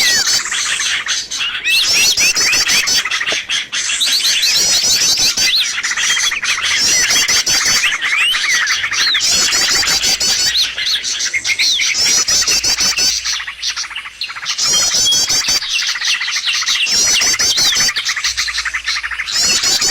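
Bird-lure recording of small songbirds chirping densely, with a rapid high trill phrase repeating about every two seconds.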